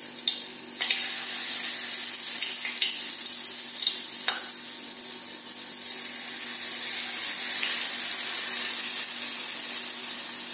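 Lumps of wheat-flour batter sizzling in hot oil in a steel pan as they are dropped in by hand, a steady frying hiss with scattered crackles.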